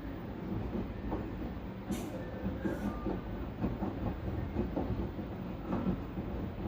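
LG washing machine running its wash cycle: a steady low rumble from the turning drum with irregular thuds and knocks, and two brief hissing bursts about two seconds in.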